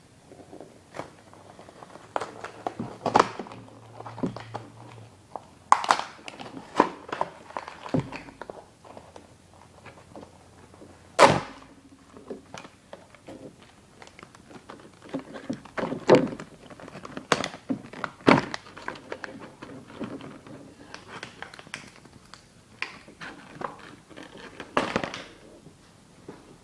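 Plastic toy packaging being opened and handled by hand: an irregular run of clicks, taps and thunks, with a few sharper knocks.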